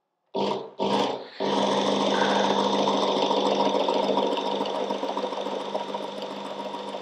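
Work Sharp Ken Onion Edition electric belt sharpener with its blade grinding attachment: the motor and belt start in two short bursts, then run steadily with a constant hum, gradually getting quieter over the last few seconds.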